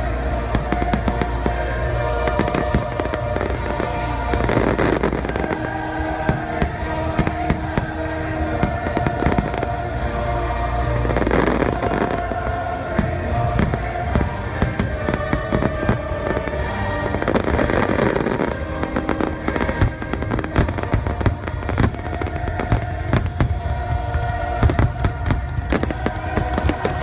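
Fireworks going off: many sharp bangs in quick, irregular succession, with music playing underneath.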